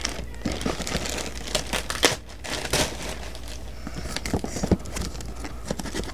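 Plastic packaging crinkling and rustling in quick, irregular crackles as a plastic courier mailer and crinkly plastic wrapping are handled and opened.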